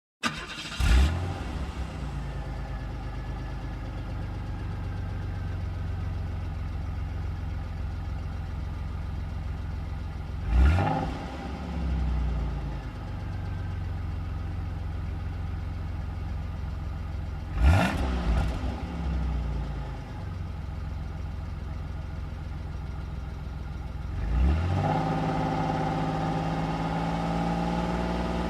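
A car engine starts and settles into a steady idle. It is revved briefly twice, each time rising and falling back. Near the end it is raised to a higher steady speed and held there.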